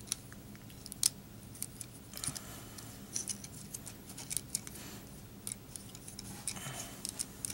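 Plastic Transformers figure being handled and transformed: small, irregular clicks and light clatter as its hard plastic parts and joints are moved and snapped into place.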